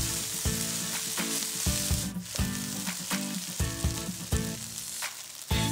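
Shrimp fried rice sizzling in a hot non-stick pan as it is stirred with a spatula. The sizzle briefly drops out about two seconds in. Background music with a steady beat plays underneath.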